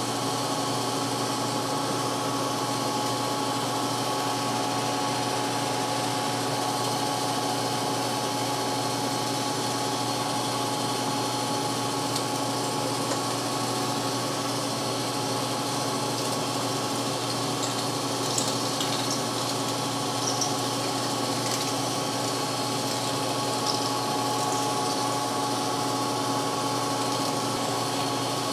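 Metal lathe running steadily while a large twist drill in the tailstock chuck bores into the end of a rusted steel tractor drag link spinning in a four-jaw chuck: an even machine hum with a few faint clicks past the middle.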